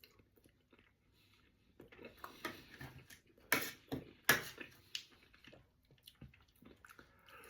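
A person eating chicken pie off a plate: after a near-silent second or two, an irregular run of short sharp clicks and smacks of eating.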